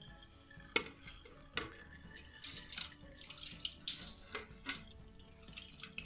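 Water poured over a mint-and-lemon paste in a stainless-steel mesh strainer, trickling and dripping through into a glass jar, with a few sharp clicks.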